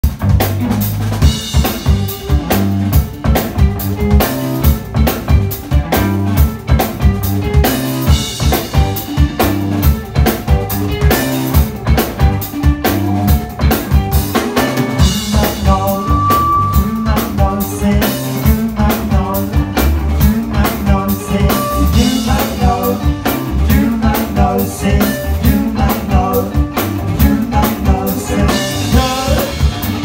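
A rock band playing live: a Pearl drum kit keeps up a fast, steady beat with a cymbal crash about every seven seconds, under electric guitars.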